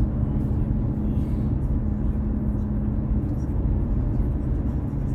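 Steady road and engine rumble inside the cabin of a moving car, low-pitched and even, with a faint steady hum.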